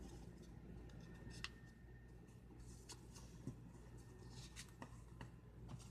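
Faint rustling and soft crinkling of a sheet of paper being folded and creased by hand, with a few small ticks scattered through.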